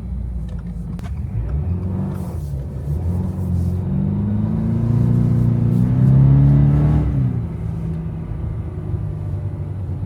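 Toyota GR86's flat-four engine revving, its pitch climbing steadily for several seconds, then falling off sharply about seven seconds in as the revs drop.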